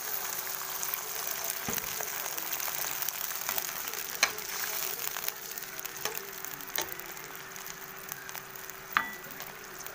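Hot pan of sautéed vegetables sizzling as water is poured in, the sizzle slowly dying down. A few sharp taps come through it, the loudest near the end.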